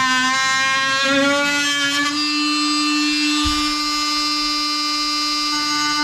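Milwaukee cordless oscillating multi-tool cutting a square access hole into a ceiling: a steady high-pitched buzz. Its pitch dips briefly near the start and again about a second in, then holds steady.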